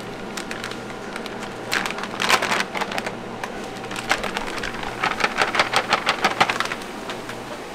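Paper flour sack crinkling and crackling as it is handled and emptied, in two bursts of rapid crackles over a steady background hiss.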